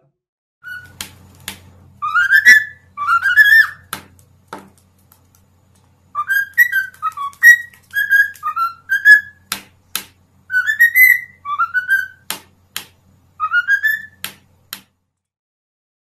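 Cockatiel whistling a tune: phrases of short rising whistled notes, with sharp clicks in between.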